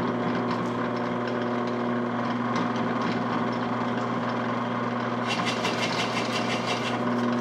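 Drill press motor running steadily at slow speed with a 30 mm Forstner bit in the chuck. About five seconds in, a rapid scratchy chatter joins the hum as the bit starts boring into the clamped wood.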